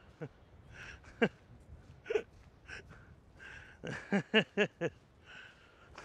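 Short sounds from a person's voice, not words: a couple of single falling-pitched sounds, then a quick run of about five about four seconds in.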